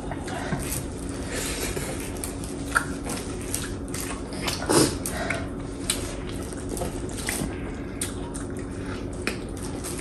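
Close-up eating sounds of dal and rice: wet chewing and mouth smacks with scattered small clicks, one louder smack about five seconds in, over a steady low hum.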